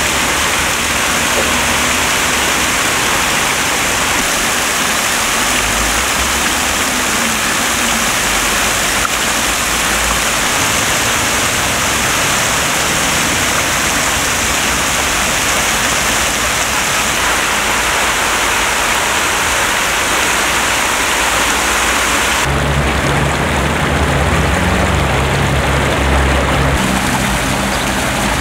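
Bridge water-curtain fountain: rows of fine jets falling from the bridge's edge into the canal, a steady dense hiss and patter of water hitting water. About 22 seconds in the sound switches abruptly to a lower, fuller gurgling and splashing of frothy bubbler jets in a fountain basin.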